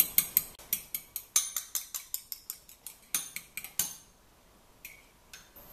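Metal fork beating eggs in a ceramic bowl: quick, even clicks of the tines against the bowl, about six a second, that stop about four seconds in, leaving only a faint click or two.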